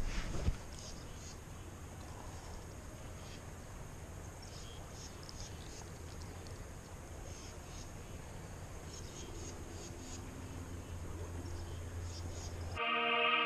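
Creekside outdoor ambience: faint high chirping of insects over a steady low rumble, with a few loud knocks and rustles of handling at the start. Western film music cuts in near the end.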